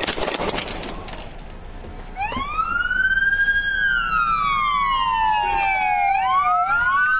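A quick run of sharp gunshots right at the start. Then police sirens wailing in: two sirens slightly out of step, each rising about two seconds in, falling slowly, and rising again near the end.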